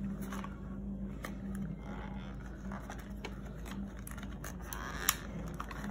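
A Wonder Ball chocolate's wrapper being picked at and worked open by fingers: a string of faint crinkles, scratches and small clicks, with a steady low hum underneath.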